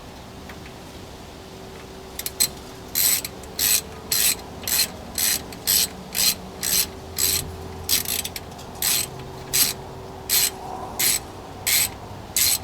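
Hand ratchet wrench clicking in short, regular strokes, a little under two a second, starting about two seconds in, as the differential cover bolts are run down until just snug in a crisscross pattern.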